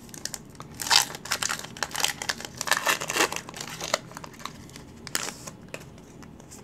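Foil wrapper of a Pokémon TCG booster pack being torn open and crinkled by hand: a burst of tearing and crackling about a second in, more crinkling over the next few seconds, then only a few scattered crackles.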